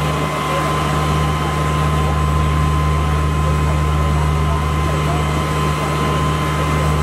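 Fire engine running steadily, with its pump engaged to feed the hose lines: a constant low drone with a steady high whine on top. Faint voices sit behind it.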